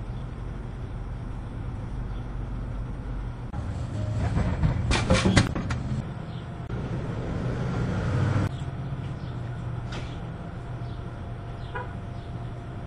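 A quick rattling clatter about five seconds in, a drink bottle dropping through a vending machine into its delivery tray, over a steady low hum with traffic passing.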